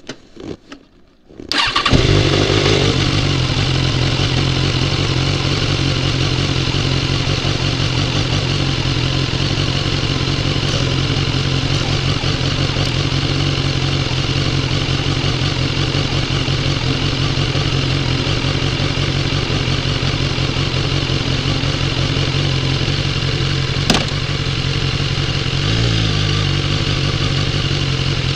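BMW S1000XR's inline-four engine starting about two seconds in, after a few faint clicks, then idling steadily. A single sharp click sounds over the idle about three-quarters of the way through.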